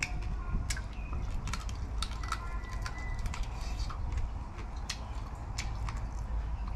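Eating crispy grilled field rat: scattered, irregular sharp crunches and clicks as the crisp meat and small bones are chewed and picked apart by hand. Faint short bird chirps sound in the background.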